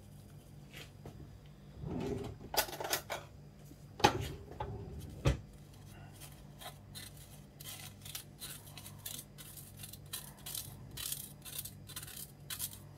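A metal spoon scraping powdered sugar through a stainless steel fine-mesh sieve, in short scratchy strokes about two or three a second. A few sharp metallic knocks and clinks come in the first seconds, before the steady scraping starts.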